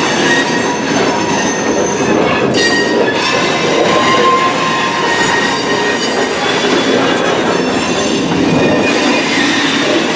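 Freight train cars rolling slowly, their steel wheels squealing in several held high-pitched tones over a steady rumble. Extremely loud, probably from rust left on the wheels and rails by the rain.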